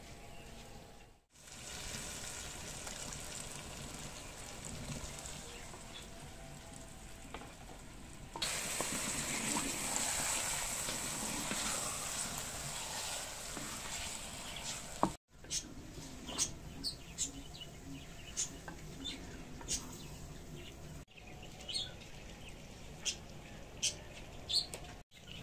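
Chicken pieces sizzling as they fry in a clay pot and are stirred with a spatula, loudest for several seconds from about a third of the way in. After a cut near the middle, short high bird chirps come one after another over a faint background.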